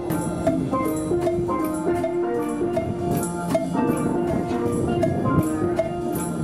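Steel pan band playing a lively tune, with drums keeping a steady beat.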